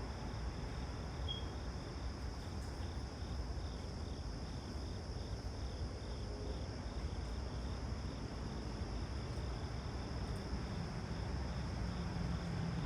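Insects chirping in an even, steady pulse, about three chirps a second, over a steady low rumble.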